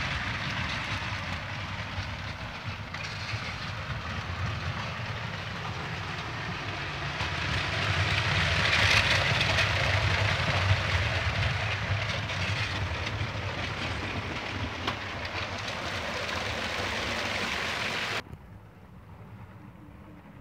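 Motorised Lego toy trains running along the track: the motors' whir and the wheels on the rails, loudest about halfway through, then dropping off suddenly near the end.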